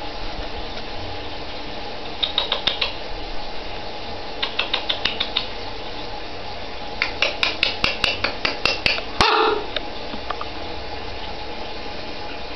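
Short runs of rapid, sharp clicks from a pet rabbit moving about on a tiled floor, over a steady hiss. A brief, louder scraping sound comes about nine seconds in.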